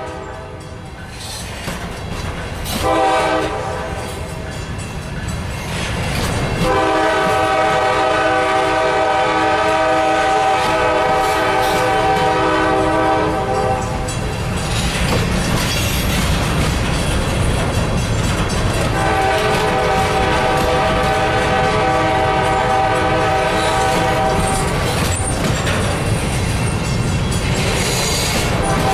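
Empty covered hopper cars rolling past, the wheels clattering over rail joints, while the lead GE C44-9W locomotive's chord air horn sounds up the line. The horn gives two short blasts in the first few seconds, a long blast of about seven seconds, then another of about six seconds, and starts again near the end.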